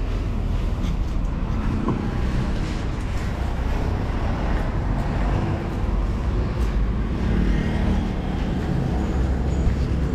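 A road vehicle being driven, with a steady low engine and road rumble.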